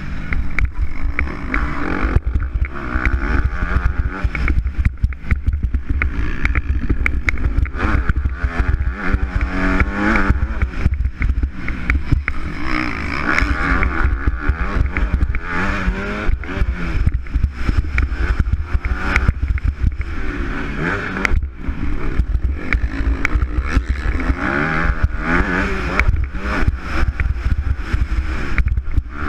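Onboard sound of a motocross bike's engine racing hard, revving up and falling back again and again through corners and straights. A heavy low rumble of wind on the microphone and frequent jolts from the bumpy track run underneath.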